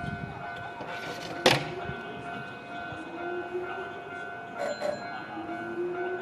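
Electric train standing at a station platform: a steady electrical hum of high tones, a sharp clack about a second and a half in, and a low whine that rises slowly twice.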